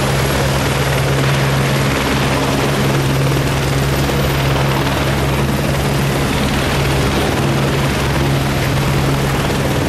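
Helicopters running on the ground before lift-off: a loud, steady low drone with rotor and engine noise and a thin high whine above it, unchanging throughout.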